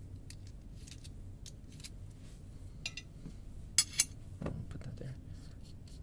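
Light metallic clicks and scrapes of a coin turning the slotted back cap of a Dorma Kaba Gemini Plus euro cylinder lock to unscrew it, with two sharper clicks about four seconds in.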